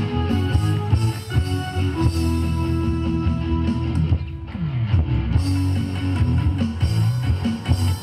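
Yosakoi dance music with full band backing, thinning out briefly about four seconds in before the full mix returns.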